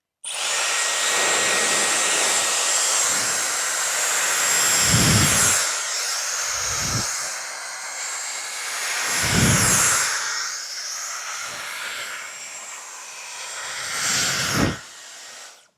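Dyson Airwrap i.d. hair styler running: a loud, steady rush of blown air with a thin, high motor whine. Several low gusts buffet the microphone. It drops away and cuts off near the end.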